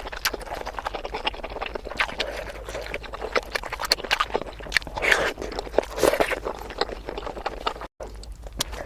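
Close-miked eating of bakso meatball soup: wet chewing and mouth smacking with many quick, sharp clicks.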